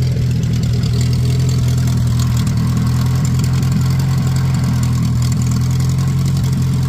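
Opel truck's petrol engine idling steadily and evenly, running on all its cylinders.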